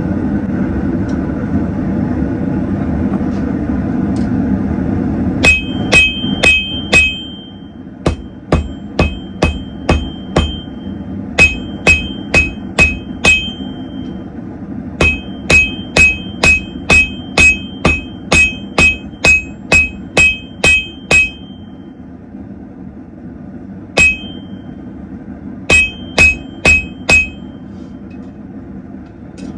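Forging hammer striking hot steel on an anvil, in runs of four to a dozen blows at about two a second, each blow with a bright metallic ring, after a few seconds of steady forge noise.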